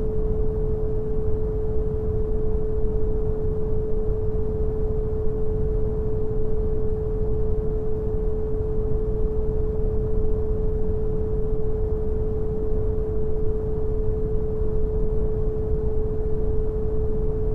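Synthetic brown noise, a steady low hiss weighted toward the bass, with a pure 432 Hz sine tone held unbroken over it.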